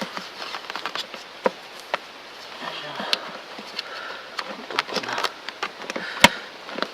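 Close handling noises: irregular clicks, taps and crackling rustles, with one sharp knock about six seconds in.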